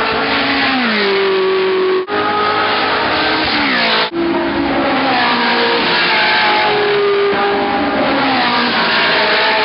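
Ferrari 458 Challenge race cars' flat-plane V8 engines running at high revs, the engine note falling in pitch several times. Two brief dropouts about two and four seconds in.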